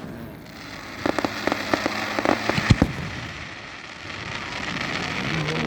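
Fireworks crackling: a dense run of small pops and crackles, like rain, about a second in, with a couple of louder bangs near the three-second mark.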